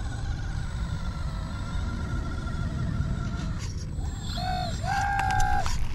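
Electric motors of radio-controlled construction models whining: a faint steady whine for the first few seconds, then two short, louder whines that start and stop sharply near the end, over a low rumble.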